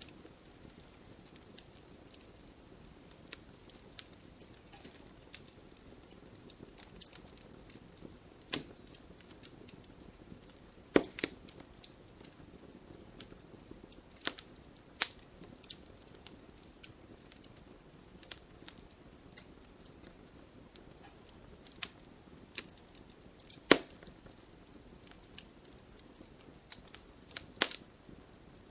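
Wood fire burning in a fireplace: a low steady hiss with irregular crackles and sharp pops, a few of them much louder than the rest.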